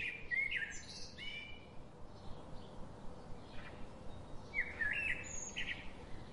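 Small birds chirping in short, quick sweeping calls, a cluster at the start and another about five seconds in, with only faint calls between.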